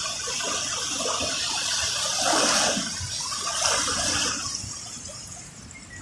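Small waves washing onto the shore and swishing back. It swells twice, about two seconds in and again near four seconds, then dies away.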